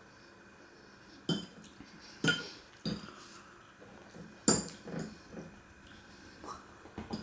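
Cutlery clinking against a dish while eating, several sharp clinks with a short ring, roughly a second apart.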